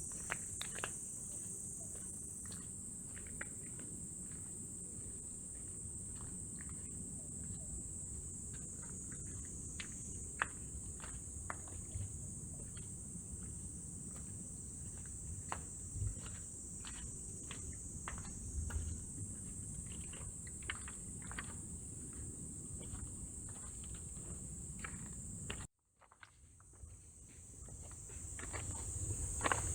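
A steady, high-pitched chorus of insects shrilling, with the light clicks of footsteps on pavement. Near the end the sound cuts out abruptly, then fades back in.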